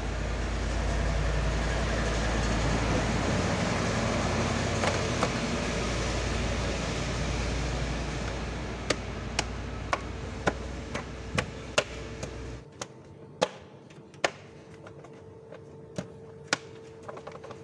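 A steady rushing noise with a deep rumble that cuts off suddenly about twelve seconds in. Overlapping it and then after it come a series of sharp plastic clicks and knocks as the engine cover is seated back onto the Toyota D4D diesel engine.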